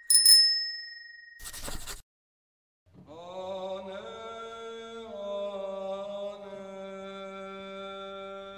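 A bright notification-bell ding rings out and fades, followed by a short click-like noise and a moment of silence. Then a sustained chanted drone starts, shifting pitch twice before holding a steady note.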